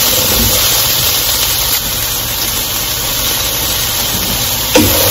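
Sliced onions and bell peppers sizzling in a frying pan: a steady hiss over a low rumble, with one sharp knock near the end.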